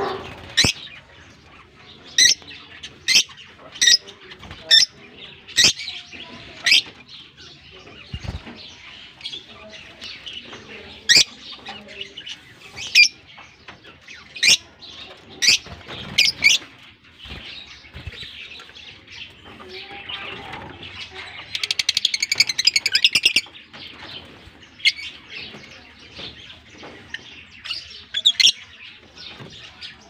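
A group of Fischer's and masked lovebirds giving sharp, high chirps about once a second, with a fast rattling chatter lasting about two seconds a little past the middle. Wings flutter as birds fly about.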